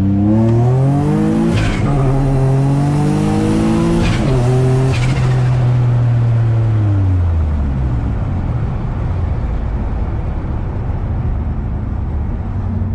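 Single-turbo Nissan G35's VQ35 V6 under hard acceleration through two gear changes: the revs climb, drop at each shift with a brief high hiss, and climb again. About seven seconds in the engine eases off and its note falls away, leaving steady road and wind noise.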